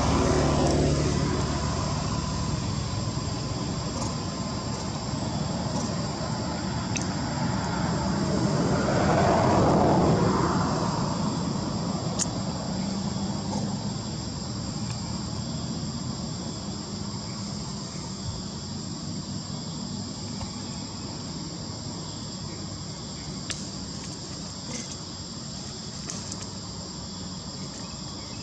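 A motor vehicle passing, swelling and fading over a few seconds with its loudest point about nine to ten seconds in, over a steady high insect drone.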